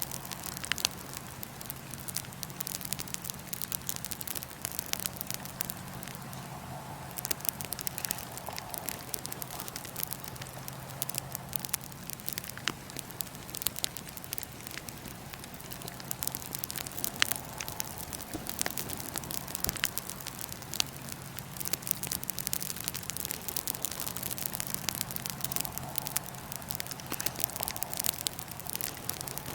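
Wood fire in a fire pit crackling steadily with frequent sharp pops, a few of them louder, over a steady low hum.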